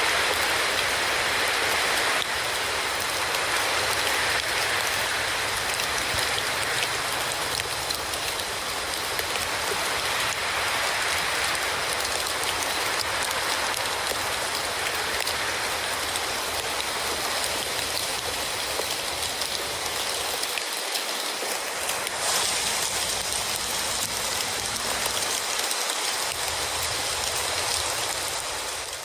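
Wet snow falling with the steady hiss of rain.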